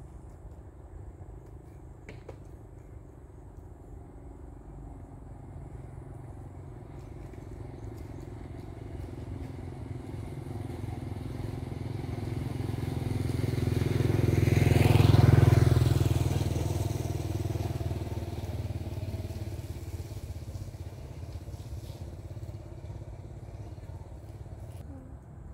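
A motor vehicle driving past: its engine sound grows louder, peaks about two-thirds of the way through, drops in pitch as it passes, and fades away.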